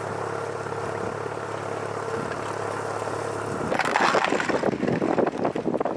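A vehicle engine running at a steady drone. About two-thirds of the way in, loud gusty buffeting of wind on the microphone takes over as the vehicle travels.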